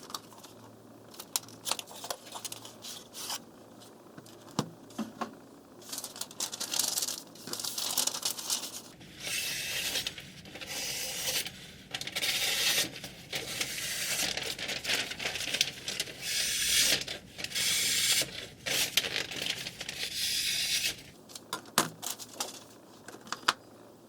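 Kitchen knife blade scraping across a wet water whetstone in repeated strokes, about one a second for some fifteen seconds, with scattered clicks and taps before and after.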